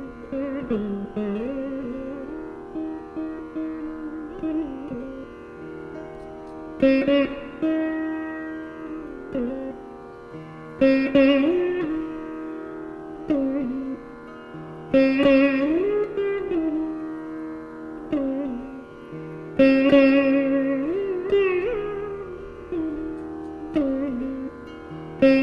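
Saraswati veena playing a Carnatic krithi in raga Khamas: plucked notes that slide and bend in gamakas over a steady drone, with a strong pluck about every four seconds.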